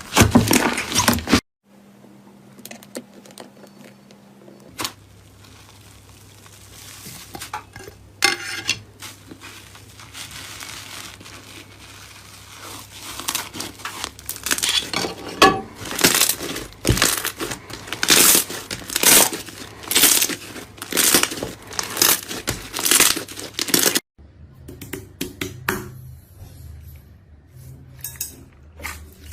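Slime being squeezed and worked by hand, giving irregular crackling, popping and squishing bursts that grow busier past the middle. The sound cuts off abruptly twice.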